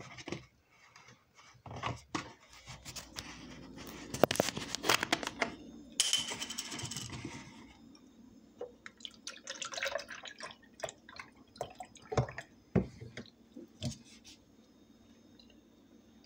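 Close-mic eating noises from crunchy pretzel-shaped sugar cookies being chewed and handled: scattered crunches and clicks, thickest about four seconds in, with a brief hiss about six seconds in.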